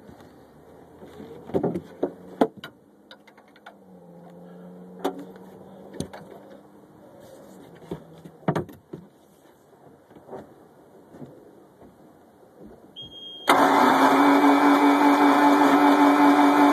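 Scattered clicks and knocks, then near the end a loud, steady starter-motor whine starts suddenly as the boat's V8 is cranked.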